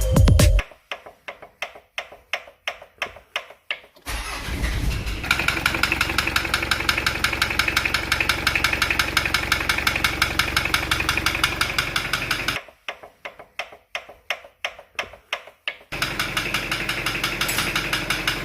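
Car engine turning over in slow, evenly spaced strokes, then catching about four seconds in and idling with a fast, regular knock from inside the engine. Later it falls back to the same spaced strokes for a few seconds before it runs and knocks again.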